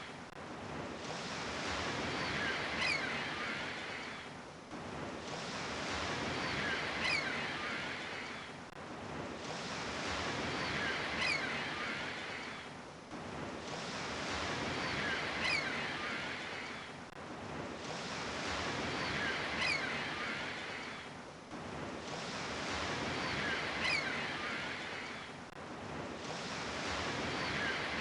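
Sea waves washing onto a shore in slow, even surges about every four seconds, each swell rising and then falling away.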